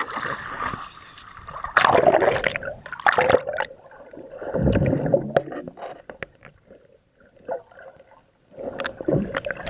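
Sea water splashing and gurgling around a camera at the surface, then muffled underwater noise with scattered clicks and bubbling as the camera goes under. The loudest bursts of water noise come about two and three seconds in, followed by a quieter stretch before more sloshing near the end.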